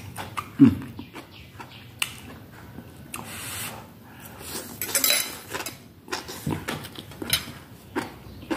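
Eating at close range: a fork clicking and scraping on a plate, with slurping and chewing of steamed mushroom strands and vegetables. A brief falling low hum from the eater comes about half a second in, the loudest sound.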